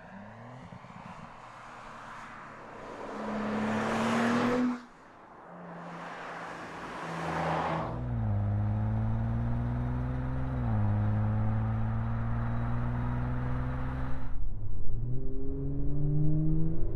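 Audi S4's 3-litre turbocharged V6 engine under acceleration, heard in several edited stretches. The engine note rises in pitch and cuts off about five seconds in, comes back climbing with steps in pitch around gear changes, and ends on a louder, choppier stretch.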